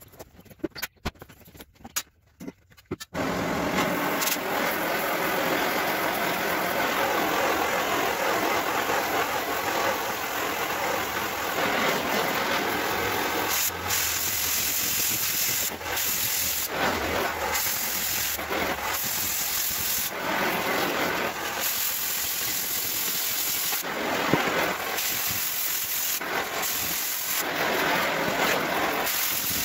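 Oxy-fuel cutting torch hissing as it cuts through steel plate, after a few light clicks; the hiss starts suddenly about three seconds in and holds steady, dipping and swelling slightly now and then.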